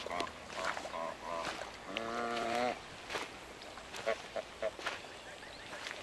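Domestic geese calling: a few short honks in the first second and a half, a longer, louder honk about two seconds in, then three short clipped calls around four seconds in.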